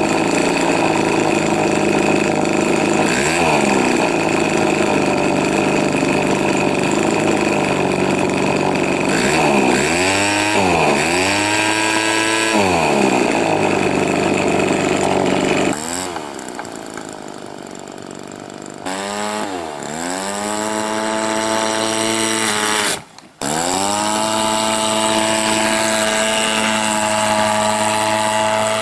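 Krisbow 42.7cc brush-cutter two-stroke petrol engine on an RC plane running at high throttle, blipped down and back up a few times. About halfway through it drops to a low idle for a few seconds, then after a very short break it runs steadily at full throttle.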